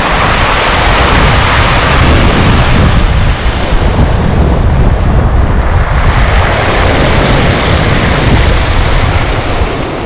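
Sea surf breaking and washing up over a pebble beach in two surges, one at the start and another from about six seconds in. Wind buffets the microphone with a low rumble throughout.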